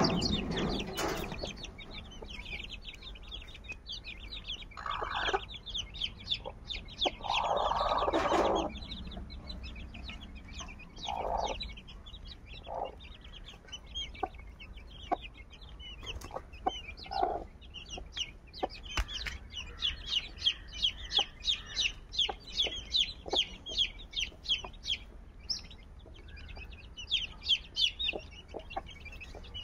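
Chicks peeping in quick, high, continuous cheeps, with a mother hen clucking now and then in lower calls, one of them drawn out for over a second.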